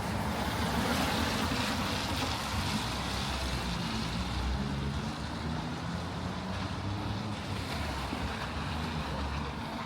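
City street traffic: a steady rush of passing vehicles' tyres and engines, a little louder in the first few seconds.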